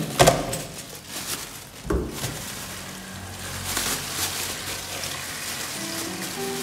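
A plastic colander clattering against a stainless steel sink, with another knock about two seconds in, then a thin plastic bag crinkling and rustling as lemongrass stalks are handled in it.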